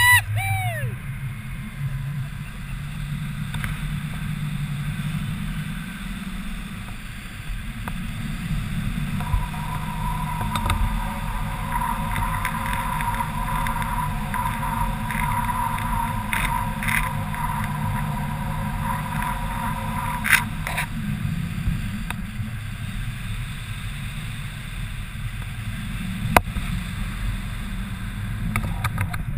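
Wind rushing over the camera microphone during a tandem paraglider flight, a steady low rumble. A steady high tone runs over it for about ten seconds in the middle, and a few sharp clicks come through in the second half.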